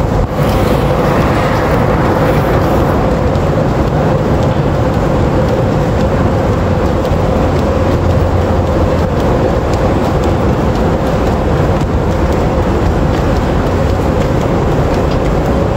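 Steady rumble and hum of a moving walkway running through an underground station passage, with a faint steady tone above it.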